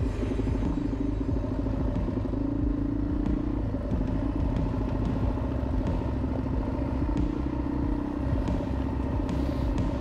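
Suzuki DR-Z400E's single-cylinder four-stroke engine running under load on a dirt trail, its revs rising and falling with the throttle. Light knocks and rattles from the bike come over the rough ground.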